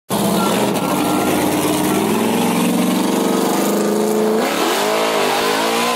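Pro2 off-road super-truck's LSX-based V8 accelerating away, its pitch climbing steadily for about three and a half seconds, then dipping briefly and rising again near the end.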